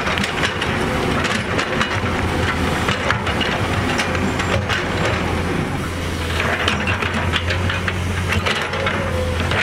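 Heavy diesel construction machine running steadily, with frequent short clanks and rattles over the engine.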